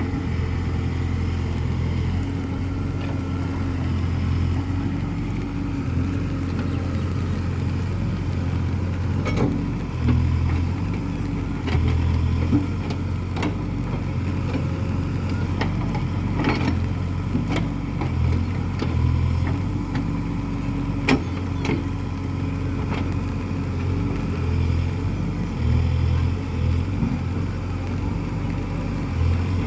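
Case 851EX backhoe loader's diesel engine running steadily, its note swelling and easing repeatedly as the machine works, with scattered sharp knocks.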